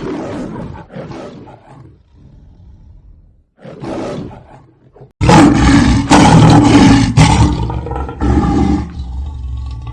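Lion roar as in the MGM logo: a few short growls, then a long, loud roar starting about five seconds in and dying away near the end.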